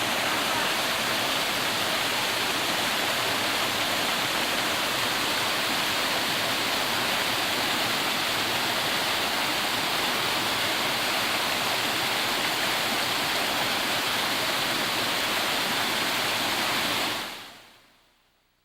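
Steady rushing of a waterfall, water tumbling over rock in an even, unbroken rush that fades away about a second before the end.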